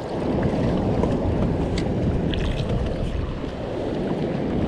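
Steady low rush of wind on the microphone mixed with sea noise, with a few faint ticks.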